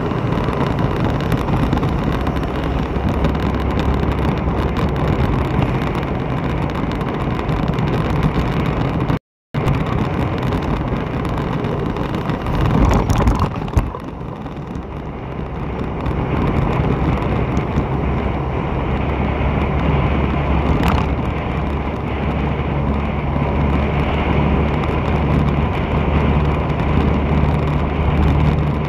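Steady engine and road noise from a moving vehicle on a wet road. There is a brief cut to silence about nine seconds in and a louder passage around thirteen seconds.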